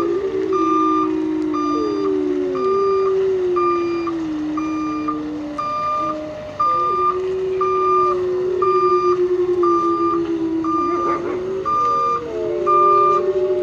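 A pack of canines howling, several long voices overlapping and sliding up and down in pitch, over a vehicle's reversing alarm beeping steadily about twice a second.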